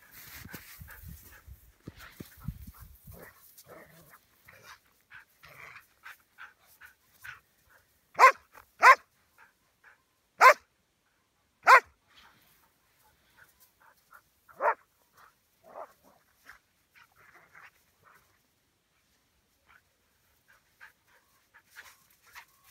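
Dogs playing in deep snow, one barking in sharp single barks: two close together about eight seconds in, then two more over the next four seconds and a softer one near fifteen seconds.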